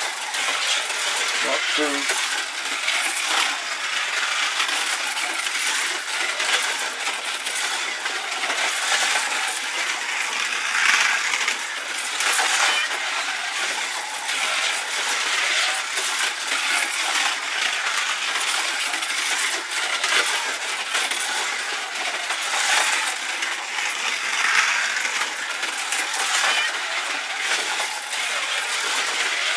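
Slot cars racing round a plastic track: a steady high whir and rattle from the small electric motors and pickups, swelling every second or two as cars pass close.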